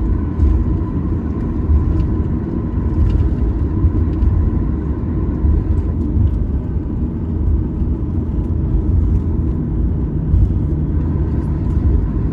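Steady low rumble of a moving vehicle, with a faint steady hum; another low hum joins near the end.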